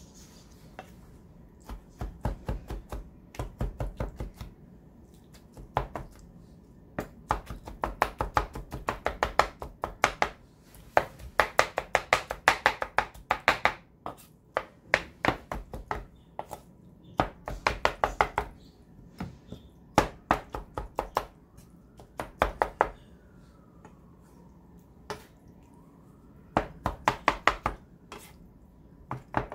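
Knife chopping on a cutting board in quick runs of sharp strokes, several a second, broken by short pauses.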